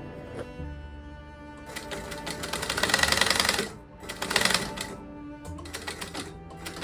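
Sewing machine stitching leather in two runs, one of about two seconds and a shorter one about half a second long, the rapid needle strokes loudest in the first run, over background music.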